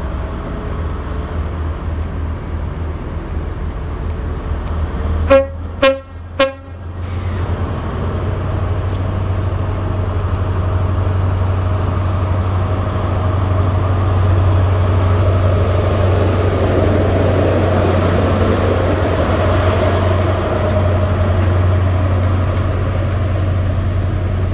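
HST (InterCity 125) Class 43 power car sounding its horn in three short blasts about five seconds in, over the steady diesel drone of the train. The drone grows louder as the power car comes along the platform and passes.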